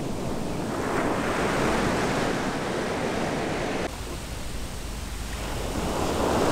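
Ocean surf washing onto a sandy beach, with wind rumbling on the microphone. The sound swells about a second in, changes abruptly about four seconds in, and swells again near the end.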